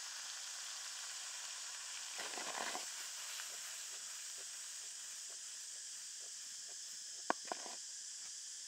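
Diced onions and bell peppers sizzling steadily in a frying pan. A couple of seconds in there is a brief louder shuffle of the vegetables moving in the pan, and near the end two sharp clicks.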